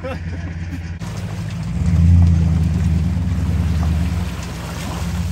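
An engine running steadily with a low hum, revving up about two seconds in and settling back down a couple of seconds later.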